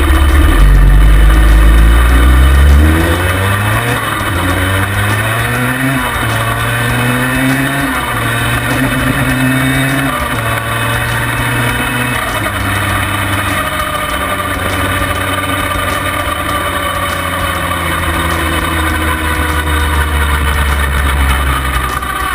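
Yamaha Banshee quad's twin-cylinder two-stroke engine, built up to 421, running under load. Its note climbs in a run of steps, as if shifting up through the gears, over the first ten seconds or so, then runs fairly steady at speed with small rises and falls.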